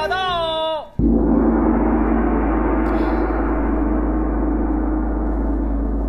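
A large gong struck once about a second in, then ringing on and slowly fading; it heralds an arrival. Just before the strike, a drawn-out call ends.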